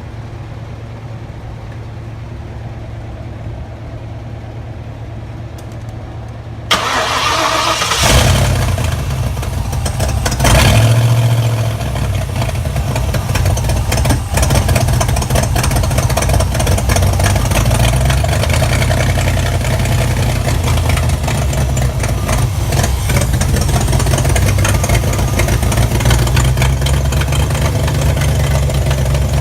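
1994 Ford 5.0-litre small-block V8, fresh from a head gasket replacement, starting up after a low steady hum. It catches about eight seconds in, rises briefly in revs, then settles into steady running.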